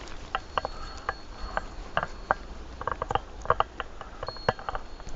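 A series of irregular light clicks and taps, a dozen or more, with a faint high steady tone behind some of them.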